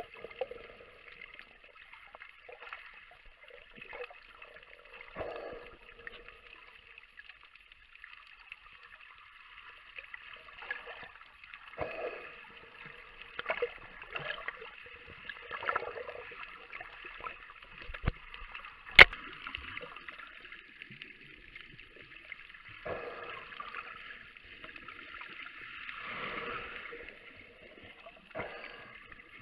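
Muffled water sound picked up by a camera underwater: steady swishing with irregular gurgling swells every couple of seconds, and one sharp click about 19 seconds in.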